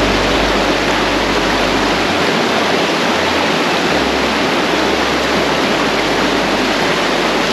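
Fast mountain stream rushing over rocks: a steady, loud wash of white water.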